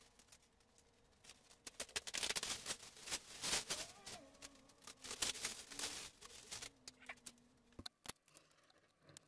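Footsteps and handling noises: irregular light clicks, knocks and rustling, busiest in the middle, with a few sharp clicks near the end.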